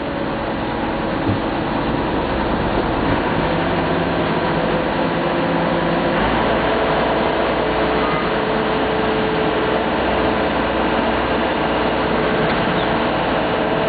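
Ferry boat's engine running steadily under a constant wash of water and wind noise; the engine hum shifts to a new steady note about six seconds in.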